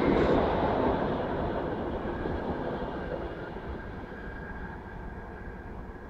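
Locomotive-hauled passenger train's coaches rolling over the rails as the train departs, the rumble fading steadily as the last coach pulls away.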